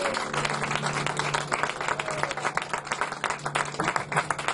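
Audience applauding in a small theatre, the clapping gradually thinning out and getting quieter.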